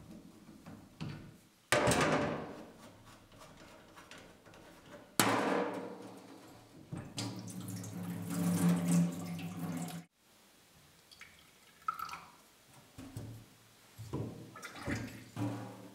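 Kitchen mixer tap turned on, water rushing into a stainless-steel sink in two spells that start suddenly; the second runs louder with a low steady hum and cuts off abruptly. After that, a few light knocks and clinks at the sink.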